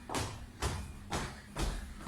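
Feet landing on the floor in a run of kangaroo-style hops: four short thuds, about two a second.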